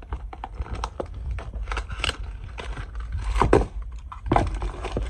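Packaged engine parts being handled: irregular rustling and clicking of the packaging, with a louder knock about three and a half seconds in.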